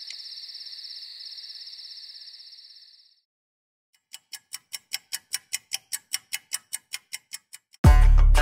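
Crickets chirping in a steady chorus that fades out about three seconds in. After a second of silence, clock ticking at about four ticks a second, growing louder, then a loud deep boom near the end as guitar music begins.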